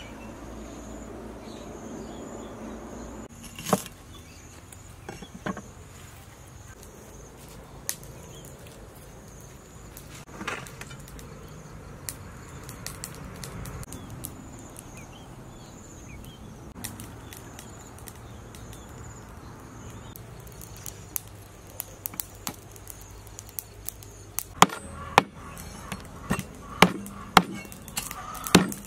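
Steady insect chirring in the background. Near the end, a knife scraping scales off a fish on a wooden chopping block: a quick run of sharp strokes, roughly one or two a second.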